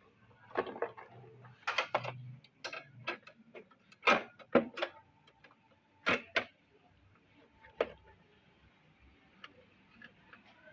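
Irregular clicks and light knocks of hard computer parts being handled and fitted together during PC assembly, about ten in all, the loudest around four to six seconds in.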